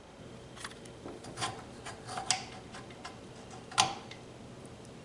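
Metal gears clicking and tapping against each other and the gearbox housing as a bevel gear is lowered onto its shaft and meshed in a KitchenAid stand mixer's gearbox: a few scattered light clicks, with the sharpest one almost four seconds in.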